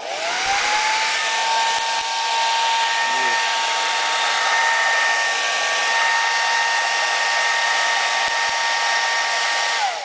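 Bosch Quattro Ion hair dryer running: the fan motor spins up in the first second to a steady high whine over the rush of air. It is switched off near the end, and the whine falls away as it spins down.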